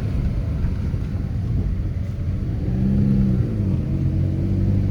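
Car engine running while driving, with a low steady rumble; its note rises and then falls back about three seconds in.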